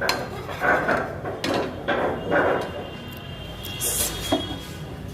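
A kitchen utensil scraping and knocking against a frying pan, several short scrapes in the first half, then quieter with a single click near the end.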